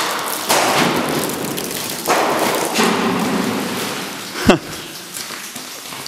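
Rustling, scraping noise of movement over loose rock and rubble in a mine tunnel with the camera handled close, in two long stretches, then a sharp thump about four and a half seconds in.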